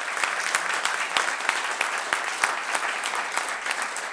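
Audience applauding: a dense patter of many hands clapping that eases off a little toward the end.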